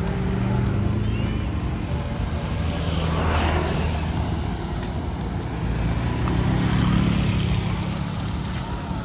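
Motorcycle engines running as they ride past close by on a street. A rush of noise rises and falls as one passes about three and a half seconds in, and the engine sound swells again around seven seconds.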